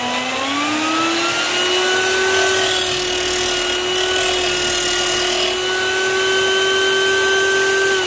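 Portable drill spinning a sanding disc on a home-made lathe, its motor whine rising in pitch about a second in as the speed controller turns it faster, then holding steady. A strip of wood pressed against the disc adds a sanding hiss.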